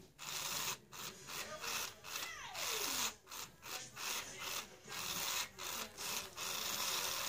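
Furby toy's internal motor and gearbox grinding in repeated short bursts as its beak opens and its eyelids close, with a falling tone about two and a half seconds in.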